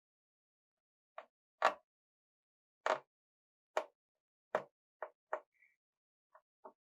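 Short, sharp clicks and taps, about nine of them at irregular intervals, with silence between: a screwdriver working the small screws of a Lenovo IdeaPad Y70-70 laptop's bottom cover.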